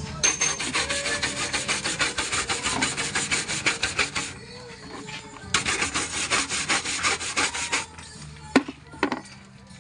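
Fast back-and-forth rasping strokes, about eight a second, in two bouts with a pause around four seconds in, like a file or abrasive being worked by hand. Two sharp knocks come near the end.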